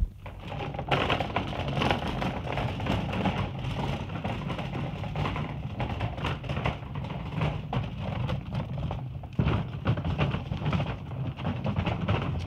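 Casters of a tack trunk rolling over a concrete floor and then dirt: a continuous rattling rumble, with a short dip about nine seconds in.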